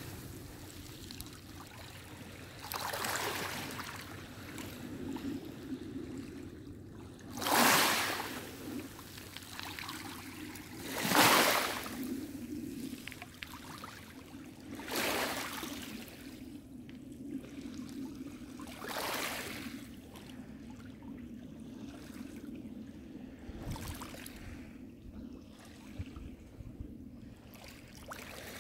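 Small lake waves lapping at the shore, each wash swelling and falling away about every four seconds over a steady low rush of water, growing weaker near the end.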